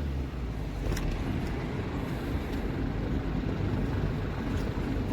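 A delivery truck driving along: a steady low engine and road drone, with a faint click about a second in.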